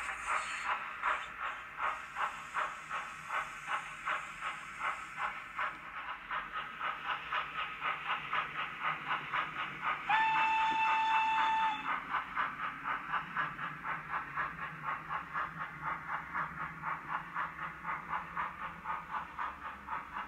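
Sound decoder with a YouChoos steam file in a Bachmann 1P model locomotive, playing a steady run of exhaust chuffs at about two to three a second as the loco runs. About halfway through there is one whistle blast lasting nearly two seconds.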